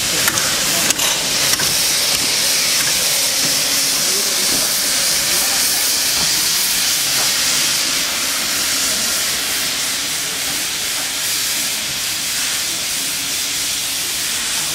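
Steam hissing steadily from LB&SCR E4 class 0-6-2 tank locomotive B473, with a few sharp clicks in the first couple of seconds.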